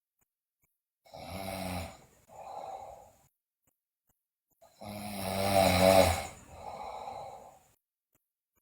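A sleeping girl snoring loudly: two snores about four seconds apart, each followed by a softer, shorter breath, the second snore the louder.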